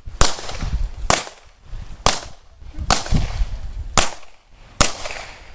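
Pistol shots fired at a steady pace of about one a second, six in all, each a sharp crack with a short echo after it.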